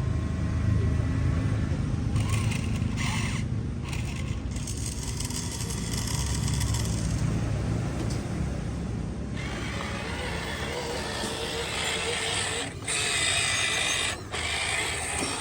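Radio-controlled model construction machines running: a steady mechanical whir of small motors and gearing over a low hum, with the high-pitched part swelling and dropping out several times.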